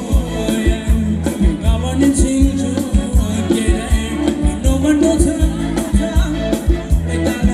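Live band playing fast Thai ramwong dance music, loud, with a steady, driving drum beat and a melody over it.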